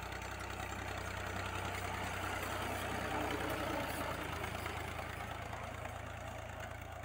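Al-Ghazi tractor's diesel engine running steadily under load as it pulls a cultivator and a wooden suhaga leveling plank across ploughed soil, a little louder around the middle as it passes closer.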